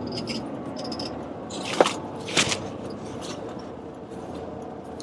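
Steady engine and road noise inside a moving truck's cab, with a faint steady hum. Two brief sharp noises come about two seconds in, about half a second apart.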